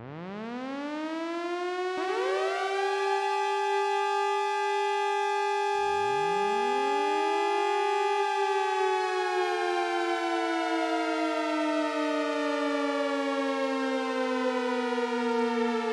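Warning sirens winding up one after another: the first rises from the start, and others join about two and six seconds in, each climbing to a steady tone. From about nine seconds in, part of the sound slides slowly down in pitch.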